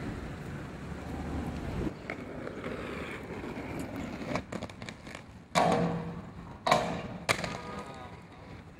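Inline skate wheels rolling on asphalt, stopping abruptly about two seconds in. Later come three loud knocks and scrapes in quick succession, the first two ringing briefly: skates striking the metal barrier arm.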